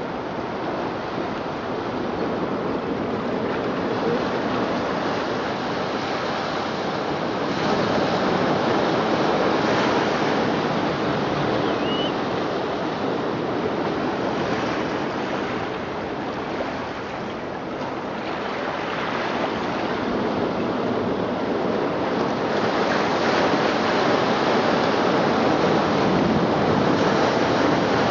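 Recorded ocean surf played through speakers built into the sculpture: a steady wash of waves that swells and eases slowly, loudest near the end.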